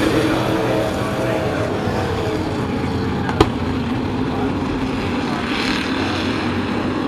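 A pack of sport-class race trucks running at racing speed, their engines blending into one steady drone. About three and a half seconds in, a single sharp click.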